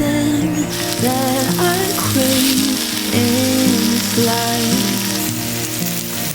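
Food frying in hot oil, a steady crackling sizzle that starts under a second in, with background music underneath.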